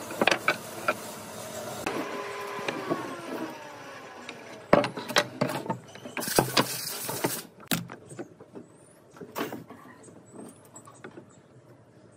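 Pine boards and cut chair-leg pieces knocked and set down on a wooden worktable: a series of sharp clacks, thickest in the middle, thinning to a few light taps near the end.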